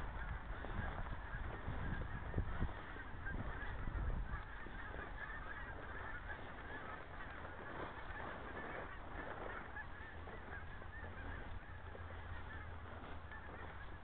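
A flock of birds calling continuously, a dense chatter of many short calls overlapping. A low rumble with bumps on the microphone comes in the first few seconds.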